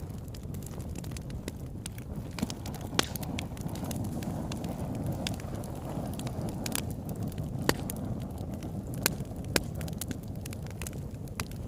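Crackling fire: scattered sharp pops and snaps, a few of them loud, over a low steady rumble.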